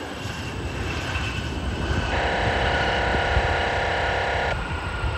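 Jet airliner engines running, a steady rumble and hiss, with a cluster of steady tones that starts suddenly about two seconds in and cuts off suddenly about two seconds later.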